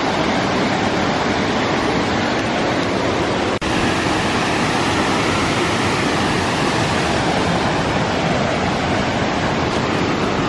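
Steady rush of Bond Falls' high-running water, broken once by a split-second dropout about three and a half seconds in.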